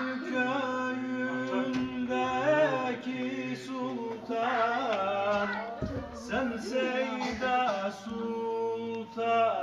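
Male voice singing a Turkish ilahi (Sufi hymn) without instruments, a wavering, gliding melismatic line over a steady held low note.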